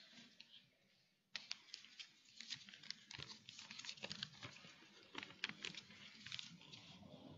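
Paper being unfolded and handled close to a lectern microphone: a faint run of crinkles and rustles, starting about a second in.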